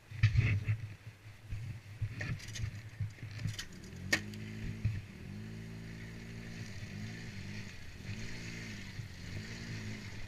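ATV engine with knocks and rattles for the first few seconds, then from about four seconds in the engine note runs steadily, rising and dipping slightly with the throttle.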